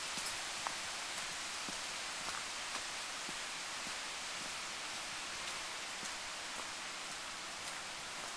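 Steady hiss of rain, with scattered drops ticking about twice a second.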